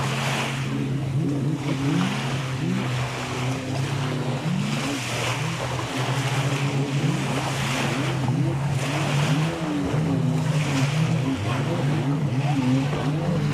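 Small waves breaking and washing up on a sandy shore, swelling every second or two, over the steady drone of a jet ski engine offshore whose pitch wavers up and down.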